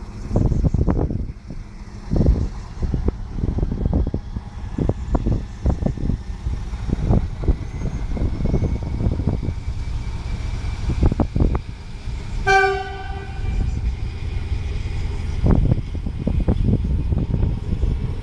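SM42 diesel shunting locomotive running as it pulls a train of coaches away, with low rumbling and uneven low thumps throughout. About twelve seconds in it gives one short horn toot, the Rp1 warning signal.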